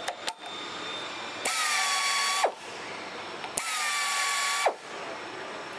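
Pneumatic FlexArm's air motor spinning a chamfer tool in two runs of about a second each: a whine that drops slightly in pitch just after each start, over a hiss.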